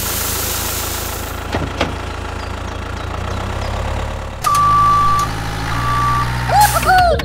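A tractor engine running steadily, with a hiss of granules pouring off a tipping trailer for the first second or so. About four and a half seconds in a steady high beep sets in, breaks off briefly and returns, and a few short warbling tones follow near the end.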